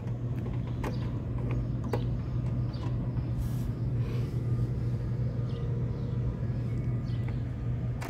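A steady low hum, with a few light clicks and taps over it.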